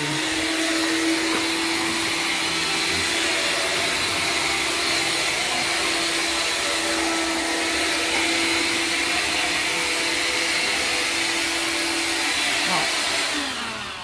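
Electrolux Ergorapido cordless stick vacuum running steadily, a constant motor whine over airflow hiss, as it is pushed over a woven rug and floor. It is switched off near the end and winds down.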